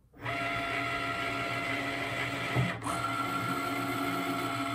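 Cricut Maker cutting machine running a cut: its motors start with a steady whine as the tool carriage and mat rollers move, break off briefly a little under three seconds in, and carry on with a shifted tone.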